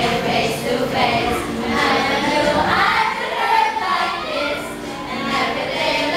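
A group of teenagers singing together, several voices overlapping.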